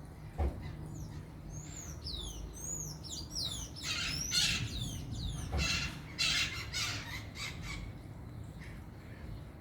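A flock of maritacas (parakeets) calling: many quick, high, swooping chirps that give way about four seconds in to a run of loud, harsh screeching squawks. Two short knocks sound, one near the start and one a little past halfway.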